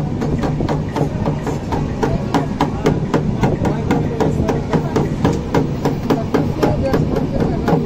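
Rhythmic clacking of a moving passenger train, heard inside the coach: sharp knocks about four a second over a steady low rumble.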